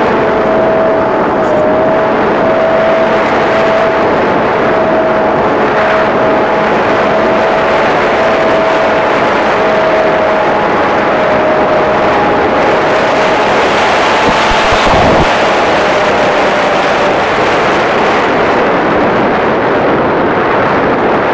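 Electric pusher motor of a Multiplex EasyStar foam RC plane whining steadily, heard through heavy wind rush on the onboard phone's microphone. The motor whine fades out about three-quarters of the way through, leaving the wind noise as the plane glides low over the ground.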